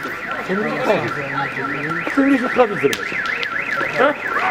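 An electronic siren or alarm warbling rapidly up and down, about three sweeps a second, with voices calling out underneath it.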